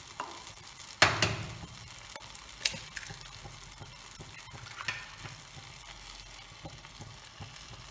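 Tomato and onion sauce with eggs in it sizzling softly in a frying pan. A sharp click comes about a second in, with fainter clicks a couple of times later.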